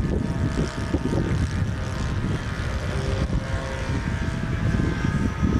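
Radio-controlled model airplane's engine and propeller droning steadily overhead, with gusts of wind buffeting the microphone.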